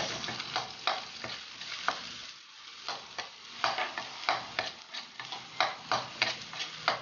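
Chopped garlic and onion sizzling in hot oil in a black metal wok, with a metal spatula scraping and clacking against the pan again and again as it stirs them.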